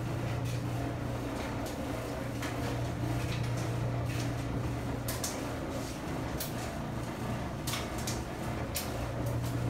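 Whirlpool front-load washer and dryer running side by side: a steady low hum with irregular light clicks and knocks.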